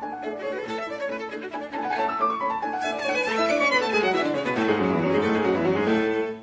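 Instrumental background music led by a violin, with quick runs of notes falling in pitch, stopping abruptly at the end.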